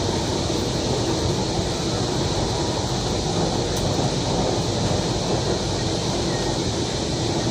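Inside a Kochi Metro train car running between stations: a steady rumble of wheels on the rails and the train's running gear, with a faint steady hum.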